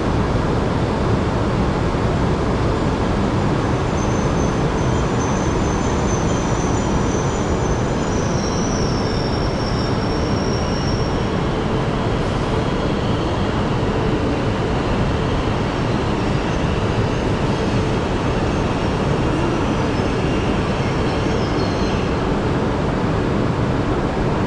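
Tohoku Shinkansen train running at speed: a steady rumble and rush of running noise. A faint high whine rides over it between about 4 and 11 seconds in.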